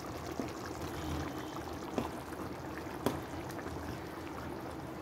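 Steady hiss of a pan of gravy simmering, with two sharp clinks about a second apart as a steel plate knocks against the pan while cut idli pieces are tipped off it into the gravy.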